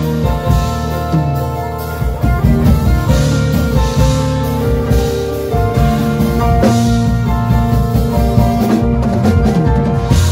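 Live band playing together: a keyboard sounding lush extended jazz-gospel chords over electric guitar and a drum kit, with frequent drum hits.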